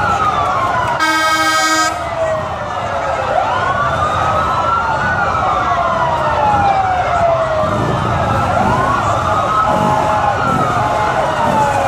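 Several police sirens wailing, overlapping, each sweeping slowly up and down in pitch. A horn blasts once for about a second, about a second in.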